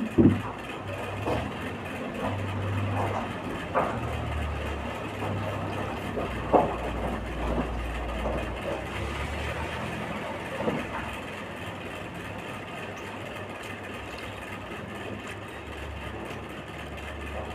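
Eating sounds from chicken being eaten: a few sharp, irregular smacks and clicks, over a steady low rumble.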